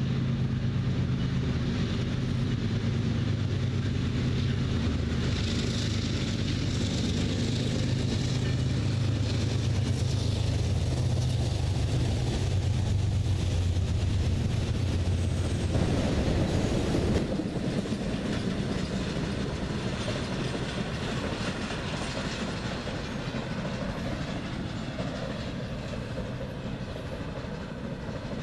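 Diesel-electric freight locomotives placed mid-train run past with a steady low engine drone. The drone stops about sixteen seconds in, leaving the rumble and clatter of double-stack and autorack freight cars rolling over the rails, slowly fading.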